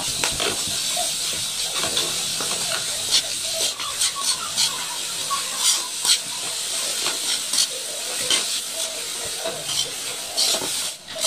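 Ground meat sizzling in a wok, with a steady hiss. A metal ladle scrapes and taps against the pan in short irregular clicks as the meat is stirred and broken up.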